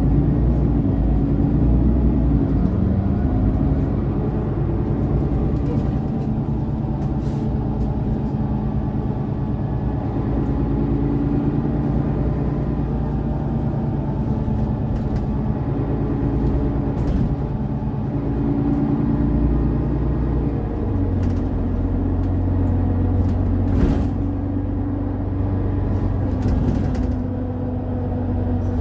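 Mercedes-Benz O530 Citaro city bus engine and drivetrain running under way, heard from inside the passenger cabin. The engine note holds steady, then drops to a lower note about twenty seconds in. A few light knocks or rattles come near the end.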